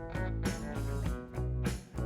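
Background music: strummed guitar with a steady beat.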